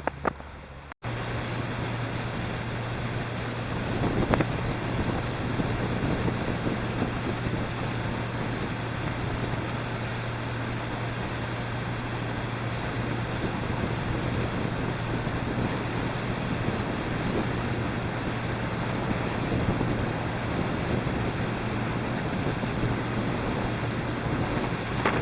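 Small boat motor on a kayak running steadily under way, with wind on the microphone and water noise over it. It cuts in abruptly about a second in.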